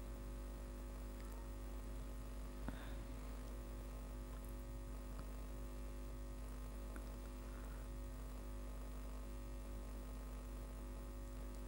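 Low, steady electrical mains hum, with one faint click about three seconds in.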